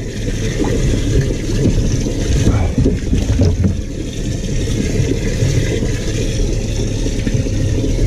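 Water churning and splashing in a bass boat's livewell as a bass is released into it, over a steady low rumble.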